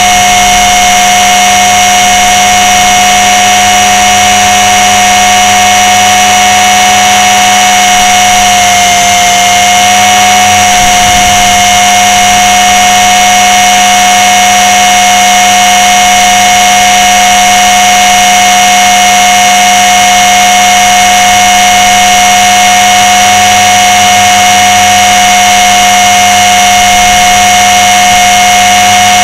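Blade 300 X electric RC helicopter's brushless motor, gears and rotors, heard close up from its underside, whining loudly and steadily. Its pitch dips slightly about nine seconds in, then recovers.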